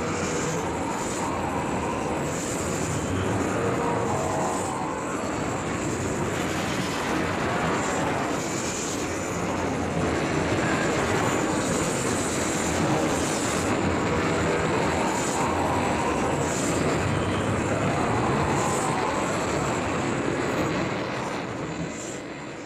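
Computer-made sound effect: a loud, dense rushing noise with a thin high whine that swells and fades every second or so, fading out at the end.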